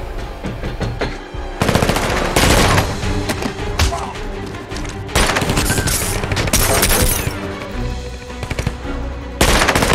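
Bursts of rapid automatic rifle fire in a film shootout, with music underneath. The firing comes in three long runs, about two seconds in, in the middle, and again just before the end, with quieter gaps between.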